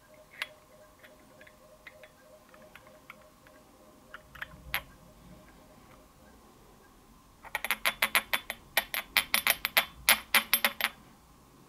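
Light, sharp clicking of small glass on glass as the oil bottle is handled against the diffuser's glass reservoir while it is emptied. A few faint scattered ticks, then a quick run of clicks, about five or six a second, for around three seconds near the end.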